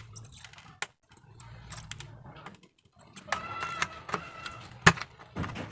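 Small clicks and taps of tools working on a car stereo amplifier circuit board while an amplifier IC is desoldered and pulled out, with a sharp click just under five seconds in. A faint low hum comes and goes in the first half, and a short pitched sound is heard a little past the middle.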